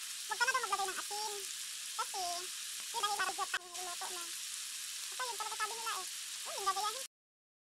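Chicken pieces, onion and tomato frying in oil in a wok: a steady sizzle, with short high-pitched calls in the background every second or so. The sound cuts off abruptly near the end.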